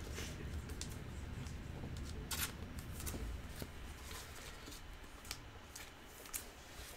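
Sports trading cards being handled and sorted by hand: light rustling and sliding with scattered soft clicks, one sharper click about two and a half seconds in.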